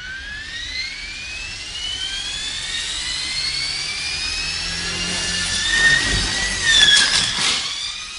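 RC helicopter's motor and rotor spooling up with a whine that rises steadily in pitch. About six seconds in, the whine wavers and sharp clattering impacts break in as the helicopter crashes and breaks apart.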